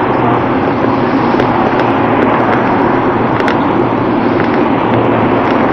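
Steady loud rushing noise of riding a bicycle along a busy road: wind on the microphone mixed with passing traffic, with a few faint clicks.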